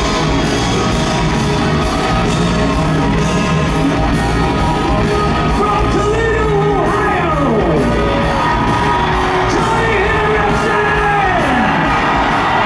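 Live hard rock band playing loudly in a large hall: pounding drums, electric guitars and a male lead singer, with gliding pitch bends a few times. Recorded from within the audience.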